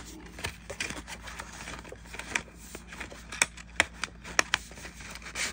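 Small paperboard box being opened by hand: the end flap pulled open and the cardboard rubbing between the fingers, with irregular light clicks and a few sharper ones past the middle.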